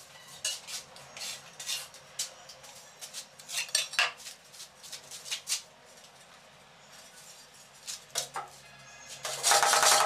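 Metal tiling tool scraping and clinking against a mortar board and ceramic tile in short, scattered strokes. About a second before the end comes a loud, rapid run of scraping or tapping.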